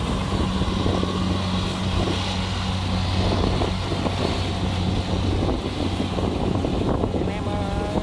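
Kubota DC-70 combine harvester's diesel engine running steadily under load while it harvests rice, a constant drone with irregular mechanical clatter from the machine over it.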